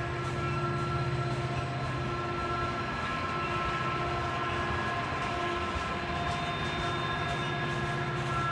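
Heavy coal train with diesel helper locomotives grinding slowly up a grade: a steady low engine drone, with a high steady whine that fades in and out.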